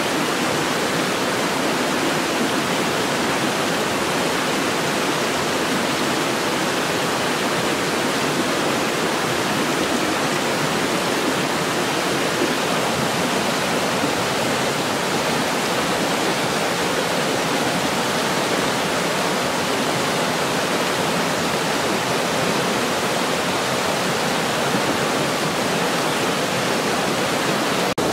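Shallow river rushing steadily over rocks and small falls, an even, unbroken sound of running water.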